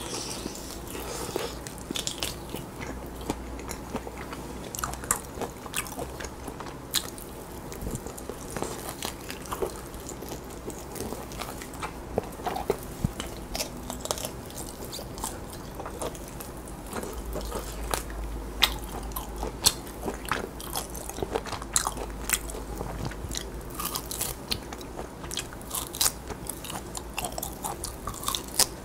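Close-miked eating: biting, tearing and chewing grilled lamb meat off the rib bones, with many short crisp crunches and clicks throughout.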